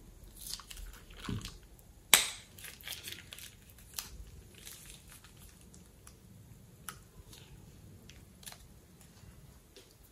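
Plastic piping bag being squeezed and handled, giving scattered clicks and short rustles; the loudest is a sharp click about two seconds in.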